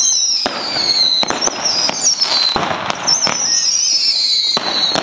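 Fireworks going off: a run of sharp bangs and cracks, over which two long, high whistles slowly fall in pitch, one after the other.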